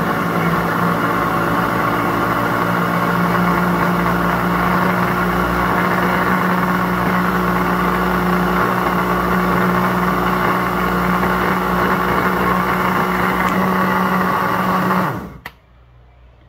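Countertop blender running steadily with a constant motor hum while it blends strawberries, yogurt, condensed milk and cream. It is switched off about a second before the end and cuts out suddenly, followed by a short click.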